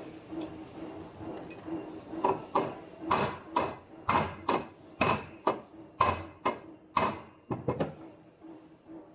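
Aluminum alloy connecting piece of a 3D hidden hinge being struck hard and repeatedly in a stamping test: about a dozen sharp metal impacts at roughly two a second, starting about two seconds in and stopping near the end. A steady low hum runs underneath.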